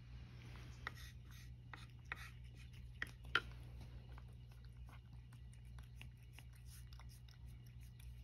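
Cat licking and eating food from a small plastic cup held by hand, faint wet clicking of its tongue, with a few light knocks between about one and three and a half seconds in, under a low steady hum.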